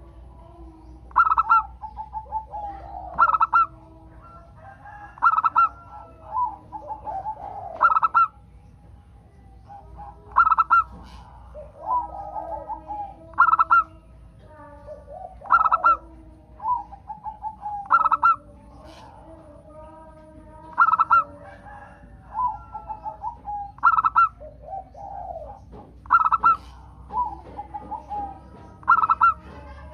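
Zebra doves (local perkutut) singing: a loud, short, high coo about every two to three seconds, with softer rolling trills in between. This is a master song recording used as a lure to get caged doves to start singing.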